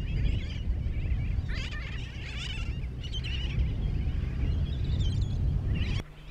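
Seabirds calling in many short, overlapping calls over a steady low rumble. The rumble cuts off abruptly just before the end.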